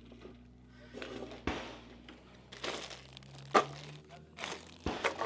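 Rustling handling noise broken by several sharp cracks; the loudest, a single gunshot at the range, comes about three and a half seconds in.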